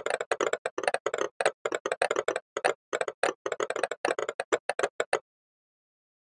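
Electroacoustic music built from recorded household noises: a rapid, uneven run of short clicks and taps, roughly ten a second, that cuts off suddenly about five seconds in.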